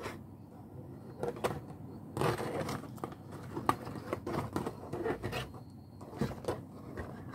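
Close-up eating sounds: chewing, and a fork scraping and clicking against a dish in short scratchy bursts.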